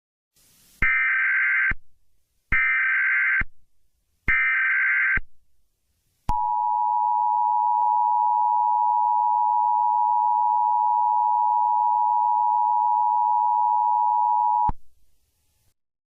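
Emergency Alert System SAME header: three short bursts of warbling data tones, each just under a second, followed by the two-tone attention signal, a steady dual tone held about eight seconds that cuts off abruptly. It is the signal that opens an emergency alert message.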